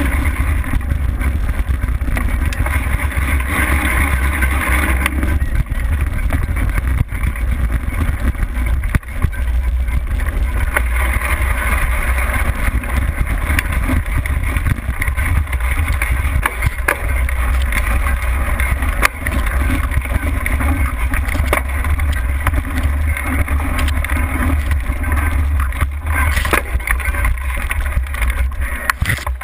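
Mountain bike riding over a dirt trail, heard through a camera mounted on the bike: a deep steady rumble of wind and frame vibration, with frequent sharp knocks and rattles as the bike runs over bumps.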